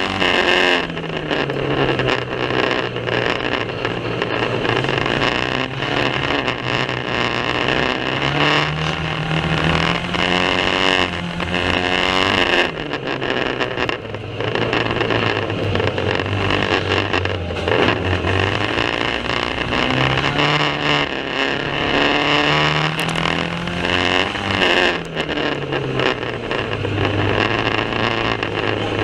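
Banger racing car engine revving hard, its pitch climbing and dropping back again and again as it accelerates and lifts around the track, over a rough wash of mechanical and track noise in a poor-quality recording.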